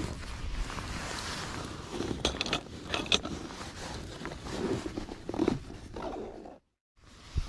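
Wind on the microphone with rustling and sharp clicks as a fabric tackle bag is handled and rummaged through. The sound cuts off suddenly for a moment near the end.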